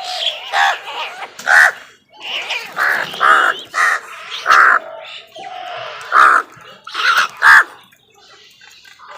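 Crows cawing: a run of about nine loud, harsh caws in quick succession, then quieter calls near the end.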